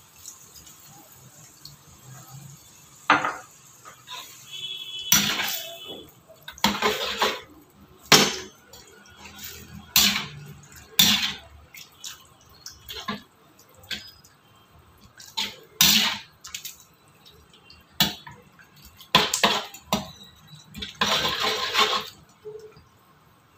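Steel spatula scraping and clinking against a metal kadai while stirring chicken pieces through a wet, watery masala, in irregular strokes about every one to two seconds.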